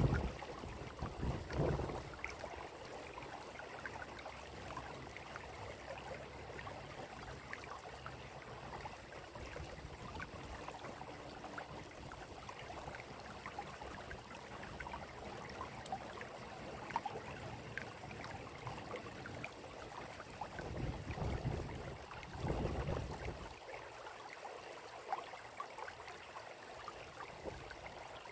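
Water running in a steady trickle, with small splashes and drips. Low rumbles come in briefly just after the start and again about three-quarters of the way through.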